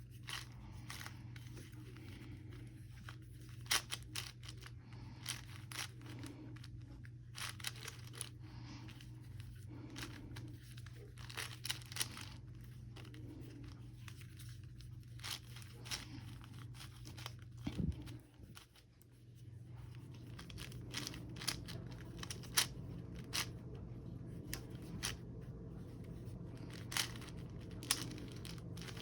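Plastic Rubik's-type puzzle cube being turned by hand: irregular clicks and scraping rasps as the layers are twisted, with a brief pause about two-thirds of the way in, over a steady low hum.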